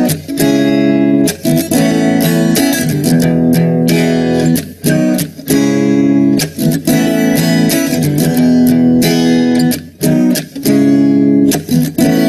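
Instrumental music of strummed guitar chords in a steady rhythm.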